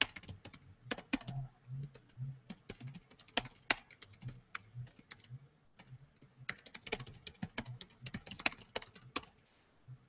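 Typing on a laptop keyboard: irregular runs of quick key clicks, with a short pause a little past halfway, as a message is typed out.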